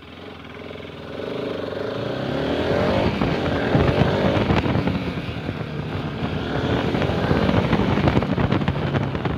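Motorcycle engine pulling away and riding off, its note climbing in pitch and loudness over the first three seconds as it accelerates, then running on steadily.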